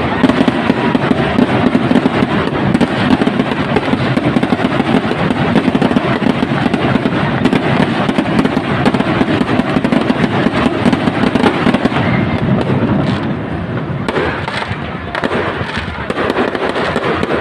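Fireworks going off in a dense, continuous barrage of bangs and crackles, easing briefly near the end before picking up again.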